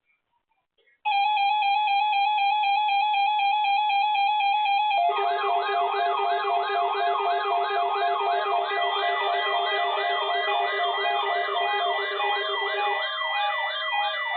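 Synthesized siren-like alert tones: steady electronic tones start about a second in, and near five seconds a fast warbling wail joins them, swooping up and down about two to three times a second over a steady lower tone that drops out shortly before the end.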